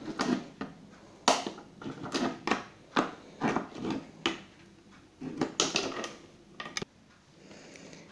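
Plastic bottle bottom crunching and crackling as a hot soldering iron tip is pushed through it, punching drainage holes one after another: roughly a dozen short, irregularly spaced crunches, with a quieter stretch near the end.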